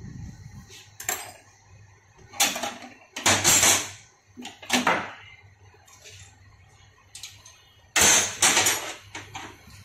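Metal tools clinking and knocking on a steel workbench: spanners picked up and set down while a diesel injector nozzle is tightened in a bench vise. A string of separate clatters at uneven intervals, the loudest about eight seconds in.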